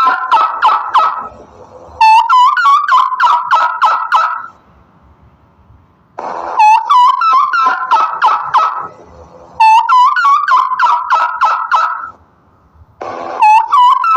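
Turkey gobbling over and over: rapid warbling gobbles of about two seconds each, four starting in turn with short pauses between them, after the tail of one more at the start.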